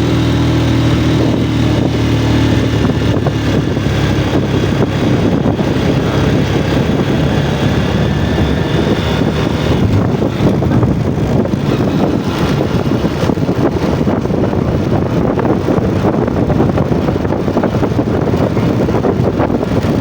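Yamaha Jupiter MX single-cylinder four-stroke motorcycle engine running under way while being ridden. Its engine note is clear for the first few seconds, then mostly buried under a steady rumbling rush.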